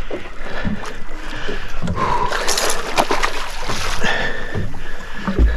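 A hooked fish thrashing at the surface right beside a boat, throwing up a run of short splashes, with water sloshing.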